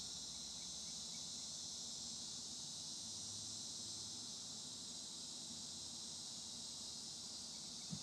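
Faint, steady, high-pitched chorus of insects chirring, with no change throughout.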